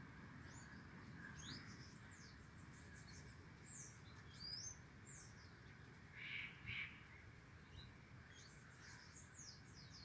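Flock of small finches chirping faintly: many short, high calls that slide downward, with two louder, lower chirps a little past the middle.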